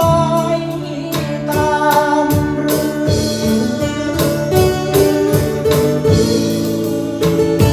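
Band music from a Thai luk thung song: sustained guitar and keyboard notes over a steady drum beat.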